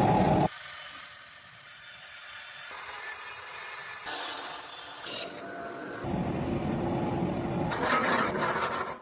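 Tools working wood, heard in several short clips joined together; the sound changes abruptly every second or two.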